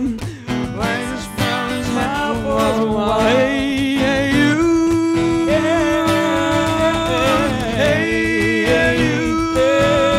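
Live pop band: singers holding long notes in harmony over acoustic guitar, bass guitar and keyboard, with sharp percussion hits in the first couple of seconds.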